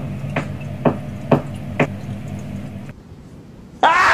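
Fire button of a Geekvape Aegis X box mod clicked repeatedly, about two sharp clicks a second, five presses in a row as used to switch the mod on or off. Near the end a loud rush of noise with a rising tone starts suddenly.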